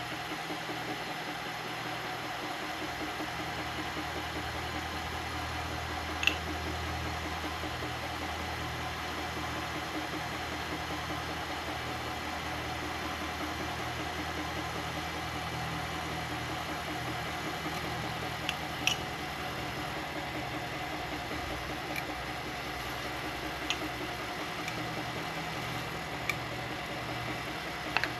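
Milling machine running steadily, its end mill cutting a slot in a carbon fiber handguard. A few short sharp ticks stand out over the hum.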